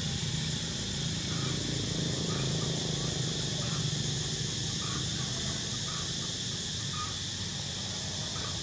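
Outdoor ambience: a steady high insect drone over a low rumble, with soft short chirps every half second or so.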